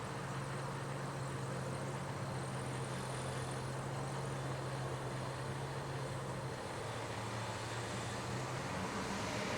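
A motor vehicle's engine idling with a steady low hum.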